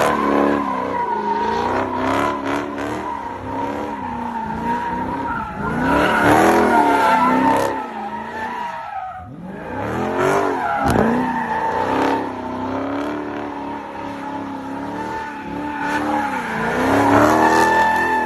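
Dodge Charger doing donuts: the engine revs up and down over and over while the rear tyres squeal steadily against the pavement. The revving and squeal briefly dip about nine seconds in.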